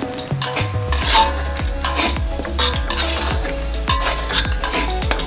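Chili paste sizzling in hot oil in a wok while a metal spatula stirs it, scraping against the pan in repeated strokes.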